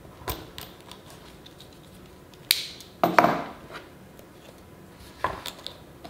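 Cardboard earbud retail box being cut open with a small blade and handled: a series of separate sharp clicks and scrapes of blade and cardboard, the loudest about halfway through.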